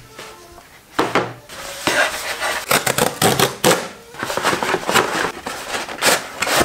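Cardboard packaging handled and opened: a cardboard mailer and a small cardboard box rustling, scraping and knocking on a table, with many sharp cardboard clicks and scrapes from about a second in.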